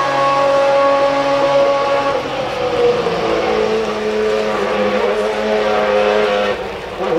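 1995 Ferrari 412 T2 Formula 1 car's 3.0-litre V12 running at steady revs as it pulls away down the pit lane. The pitch drops about two seconds in and then wavers a little, and the sound gets quieter near the end as the car draws away.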